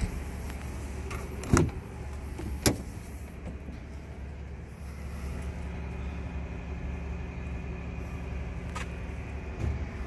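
Truck cab door being opened: two sharp clicks from the handle and latch about a second and a half and two and a half seconds in, and a smaller knock near the end, over a steady low hum.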